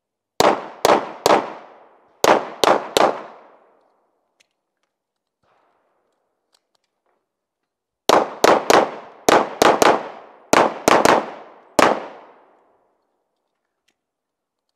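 Pistol shots fired in fast strings: two groups of three in quick succession, a pause of about five seconds, then ten more shots in rapid groups of three and a last single. Each shot is sharp with a short echoing tail.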